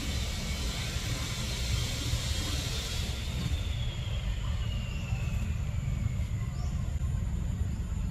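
Steady outdoor background noise: a low rumble throughout, with a high hiss that fades about three seconds in, giving way to a faint whine that slowly falls in pitch.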